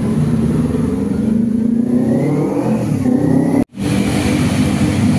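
Motorbike engine running steadily, with a faint rising whine in the middle; the sound cuts out completely for an instant about three and a half seconds in, then the engine carries on.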